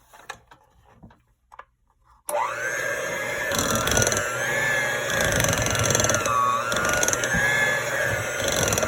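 Electric mixer switched on about two seconds in and running steadily, its motor pitch wavering as the beaters work through chocolate cake batter. A few faint clicks and knocks come before it starts.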